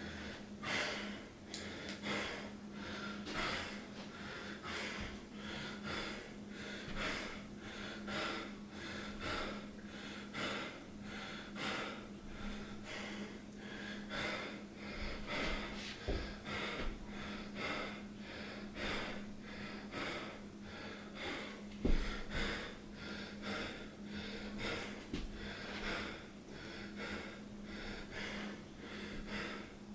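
A person breathing heavily in quick, regular breaths, about one a second, which the uploader puts down to being sick. A steady low hum runs beneath, and a single short thump comes about two-thirds of the way through.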